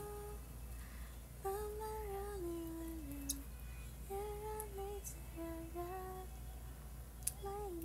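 A woman humming a slow melody in three phrases of held notes that step gently down, the phrases starting about a second and a half in, about four seconds in, and near the end.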